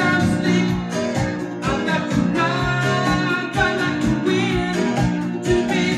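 A vinyl record playing on a Micro Seiki MB-12 turntable: a song with guitar and singing over a steady beat.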